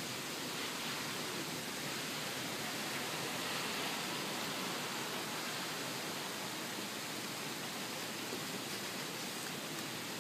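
Steady rain falling, an even hiss that barely changes.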